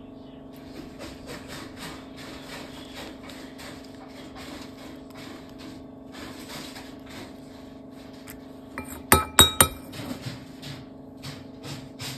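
A spoon scooping and tapping in a glass dish of melted chocolate: faint scraping and light taps throughout, then three sharp ringing clinks of the spoon against the glass about nine seconds in, over a steady low hum.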